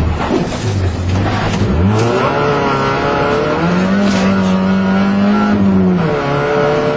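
Rally car engine heard from inside the cabin, working hard along a stage. Its note dips sharply twice in the first two seconds, then climbs and holds high before dropping again about six seconds in, as the driver lifts and changes gear.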